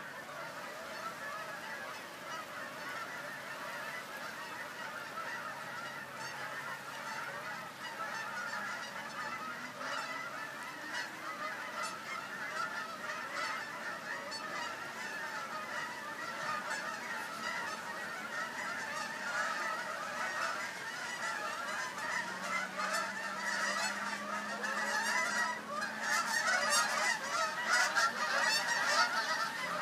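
Many Canada geese honking in flight as flocks pass over, a continuous overlapping chorus of calls that grows louder over the last few seconds.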